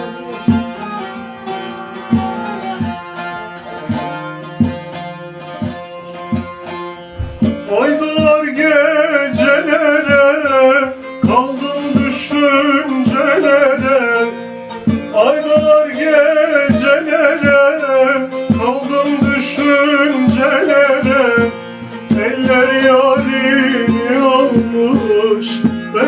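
Bağlama (Turkish long-necked saz) played alone, its plucked notes ringing over a steady drone; about seven seconds in, a man's voice joins, singing a Turkish folk melody with much bending and ornament in the pitch over the instrument.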